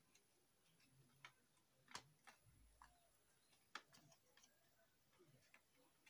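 Faint, irregular clicks and ticks of cable connectors and a circuit board being handled and unplugged inside an opened satellite set-top box.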